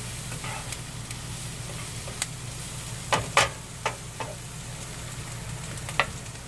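Onions, peppers and tomatoes sizzling in butter in a frying pan while being stirred, with a few sharp clicks and scrapes of the utensil against the pan, the loudest cluster about three seconds in.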